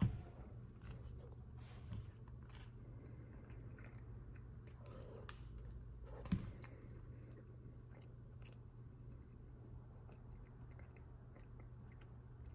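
A person chewing a mouthful of microwaved chicken enchilada bake (chicken, corn tortilla, rice and beans), faintly, with a sharp click at the start and another about six seconds in.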